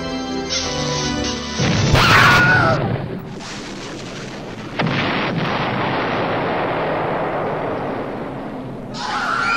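Organ music breaks off about a second and a half in at a nuclear explosion sound effect: a sudden loud blast, then a long rumble that jumps suddenly louder again about halfway through.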